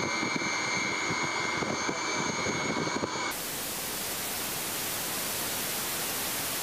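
An Antonov An-124's turbofan engines running with a steady high whine over a rushing noise. About three seconds in the sound cuts sharply to an even, steady hiss.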